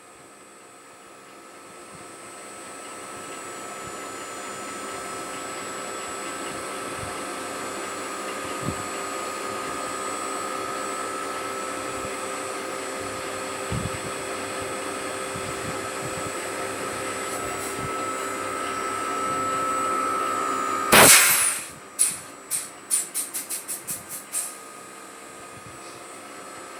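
A blower motor runs with a steady whirring hiss that slowly grows louder. About 21 seconds in there is a loud short burst of rushing noise, then a quick run of about ten sharp clicks that die away.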